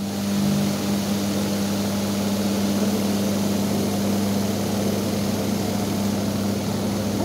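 Washing machine motor starting up and then running steadily with a low hum.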